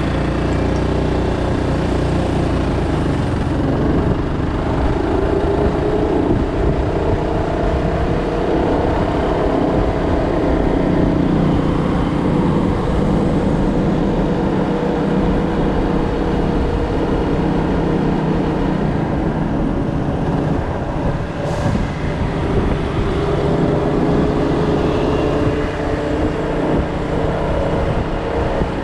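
City street traffic: motor vehicle engines running steadily, their pitch slowly rising and falling.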